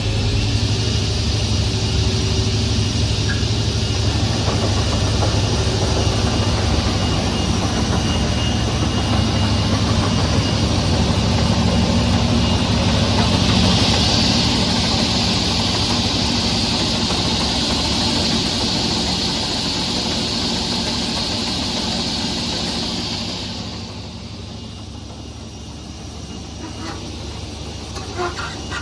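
SCM M3 S crawler-feed multi-rip saw running, its 25 kW main motor and saw blades giving a steady low hum under a broad hiss with a thin steady whine. A brighter hiss swells through the middle, then about three-quarters of the way in it falls away and the machine runs on quieter.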